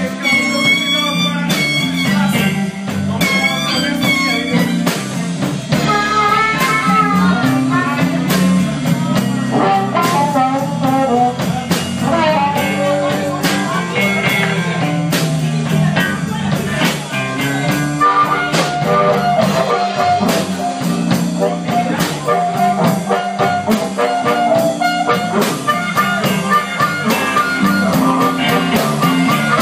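Live blues band playing, an electric guitar carrying the lead with bending notes over steady drums and bass.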